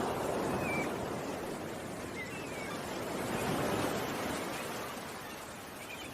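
Ocean waves washing in, swelling twice, with a few faint bird chirps over them.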